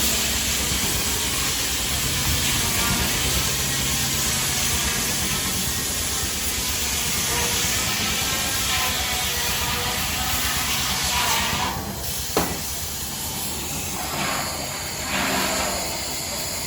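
Steady steam hiss from a 1912 Case 40 hp steam traction engine at work. About twelve seconds in, the hiss drops away, a single sharp click follows, and then two short puffs of hiss.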